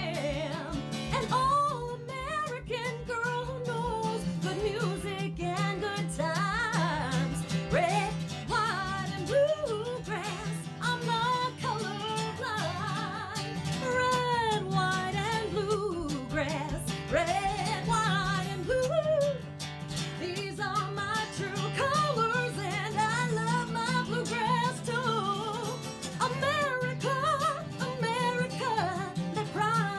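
A woman singing a country song, her voice wavering with vibrato, over a strummed acoustic guitar.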